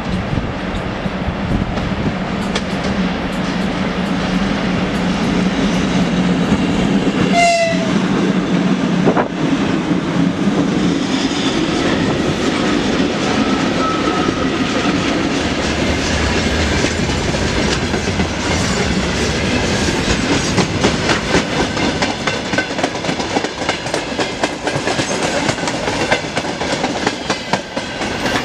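A 2ES6 electric locomotive passing close at speed with a freight train and a VL11M locomotive in tow, with a steady hum as it goes by and a short horn blast about seven seconds in. Then the freight wagons roll past with a steady clickety-clack of wheels over the rail joints.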